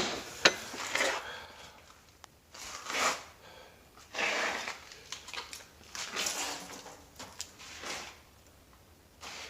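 Wooden knocks and scrapes from a wooden chest being handled: one sharp knock at the start, then a string of shorter knocks and scraping sounds a second or so apart.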